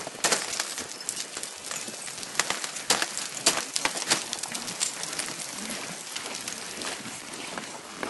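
Ice axes and crampon points striking and chipping into waterfall ice: a run of sharp, irregular knocks and clinks, the hardest a few seconds in.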